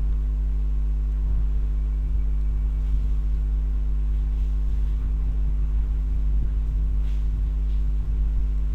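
Steady low electrical hum with a buzz of evenly spaced fixed tones above it.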